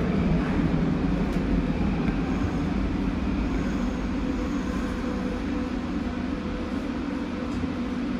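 Subway train running along a station platform, heard from the driver's cab: a steady low rumble of wheels on rail and running gear, with a faint high whine in the middle, the level easing off gradually as it slows.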